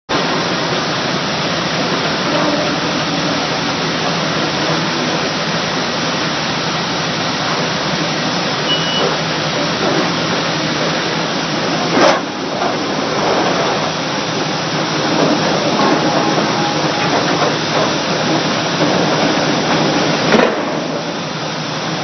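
Steady loud hiss of exhausting air from a Vulcan #2 pile hammer at work driving a timber pile, with two sharp knocks, one about halfway through and one near the end.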